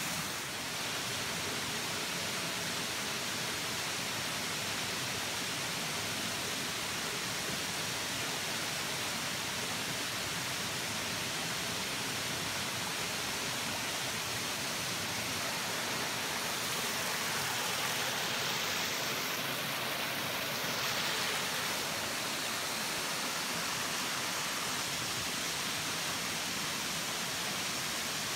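Steady rushing of a waterfall and the rocky creek below it, an even hiss of falling and flowing water that swells slightly a little past the middle.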